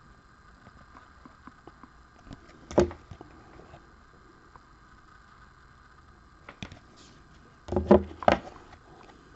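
Hard plastic card holders clacking against one another as a stack of cased baseball cards is handled and flipped through: a single clack about three seconds in, another near the end, then a quick run of three or four clacks. A faint steady hum runs underneath.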